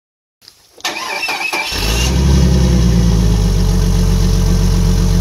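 A car engine being started: the starter cranks briefly about a second in, the engine catches just under two seconds in, and it then runs loud and steady.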